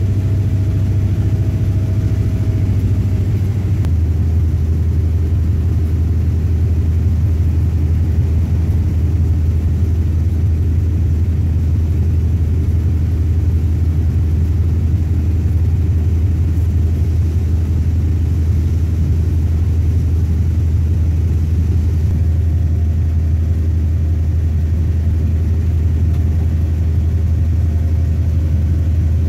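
Train's diesel engine running steadily, a loud low drone heard from the driving cab at the front of the train, with the rumble of the train running along the track. About four seconds in, the engine's note steps down slightly.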